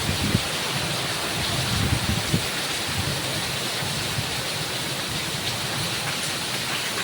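Heavy rain pouring down steadily, with low, gusty rumbles of strong wind during the first couple of seconds.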